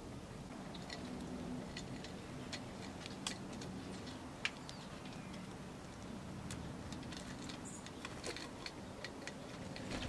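Small birds feeding at a tube seed feeder, pecking and cracking seed: irregular sharp ticks and clicks of beaks on seed and the feeder tray, the loudest click about four and a half seconds in.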